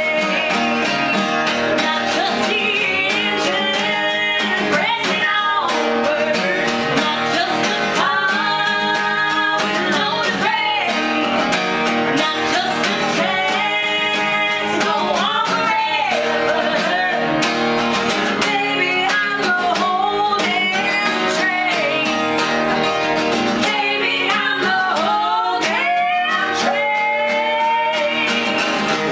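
Live acoustic country song: two acoustic guitars strummed, a woman's lead vocal and a second woman's voice singing harmony.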